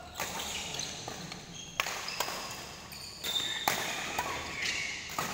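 Badminton rally: several sharp racket strikes on the shuttlecock at irregular intervals, with short high-pitched squeaks of court shoes on the floor between them.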